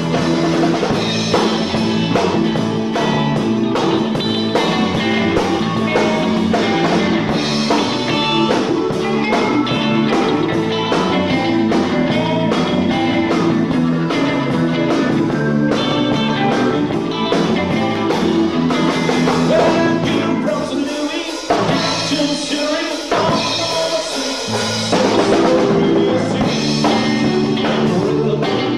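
Rock and roll music with singing, drums and guitar.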